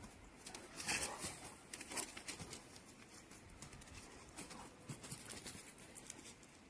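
Scattered light taps and rustling of animals moving about, a little louder around the first two seconds and fainter after.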